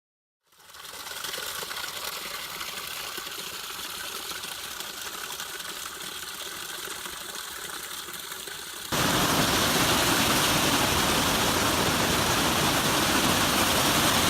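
Steady rushing wind noise on an outdoor microphone. About nine seconds in it cuts suddenly to a louder, fuller rush.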